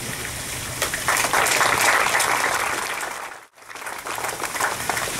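Audience applauding at the end of a speech, swelling about a second in. The sound drops out abruptly for a moment near the middle, then the clapping resumes more thinly.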